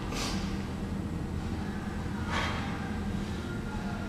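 A man breathing out hard twice, about two seconds apart, with the effort of kettlebell goblet squat reps, over a steady low hum.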